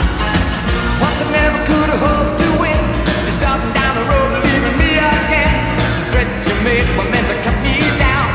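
Rock song with a singing voice over a steady drum beat, played as a hockey team's win song.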